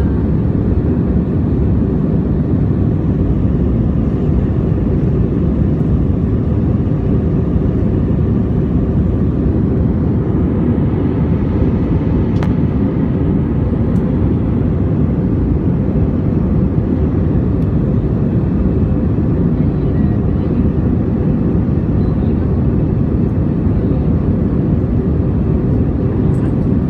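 Steady cabin noise inside an Airbus A321 in flight: a constant low rush of jet engines and airflow.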